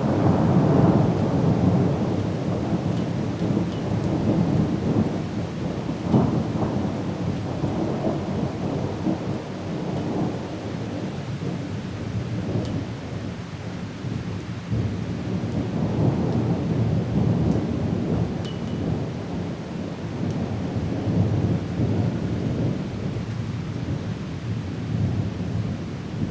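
Thunderstorm: steady rain with rolling thunder, the low rumbles swelling and fading several times, loudest just after the start and again about six seconds in.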